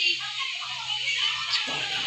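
Background music with faint voices, like a television playing in the room.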